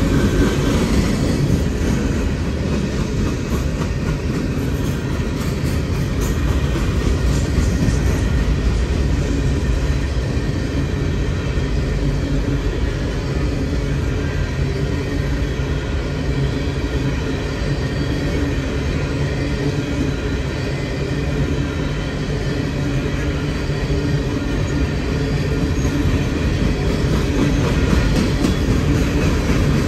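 Empty coal hopper cars rolling past steadily, the continuous noise of their wheels on the rails.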